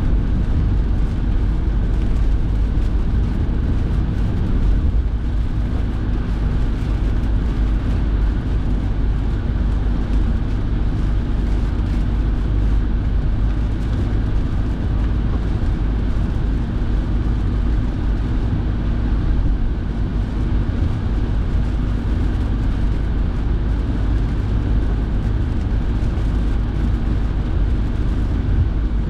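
Steady noise inside a moving car's cabin: engine and tyre noise with the heater fan blowing, even and unbroken throughout.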